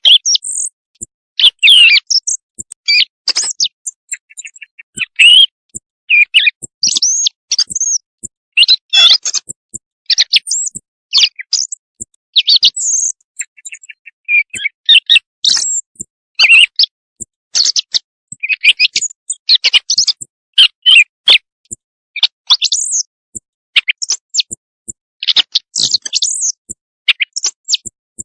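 A recording of bird calls used as a night-time hunting lure: loud, short, high chirps and pips in irregular clusters, some sweeping down in pitch, with brief pauses between them.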